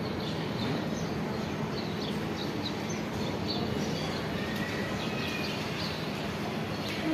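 Small birds chirping in short, scattered calls over a steady background noise.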